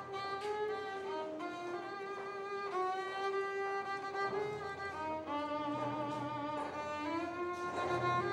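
Solo violin playing a slow melody with vibrato.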